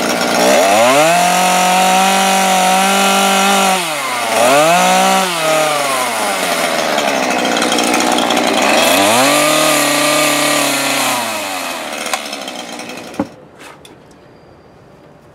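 Small two-stroke chainsaw running at full throttle and plunge-cutting into a wooden plank, widening a slot so the chair's two boards fit. The engine pitch rises at the start, dips briefly near 4 s, and rises again twice before falling away about two-thirds of the way through, followed by a single sharp knock.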